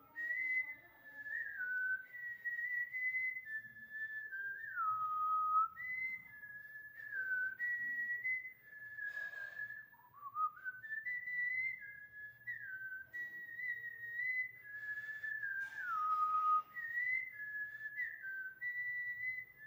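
A woman whistling a song melody through pursed lips: one clear note stepping up and down from phrase to phrase, twice broken by a short breathy gap.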